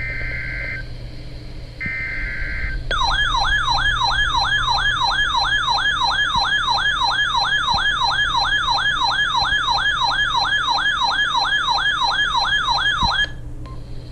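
Emergency Alert System header on weather radio: short buzzy data bursts, then a loud siren-like alert tone warbling up and down about two and a half times a second for about ten seconds before cutting off abruptly, marking the start of a new severe thunderstorm warning.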